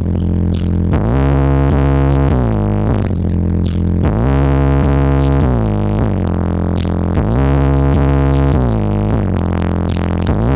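Loud electronic music with sustained synthesizer chords and very heavy bass, played through a large sound system at a sound check.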